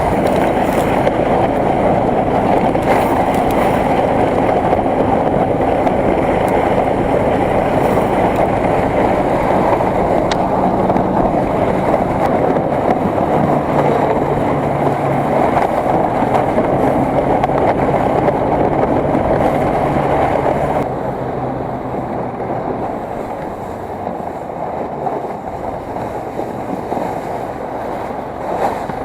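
A motor vehicle running steadily on the move, with a continuous rushing noise and a low engine hum; it turns quieter about 21 seconds in.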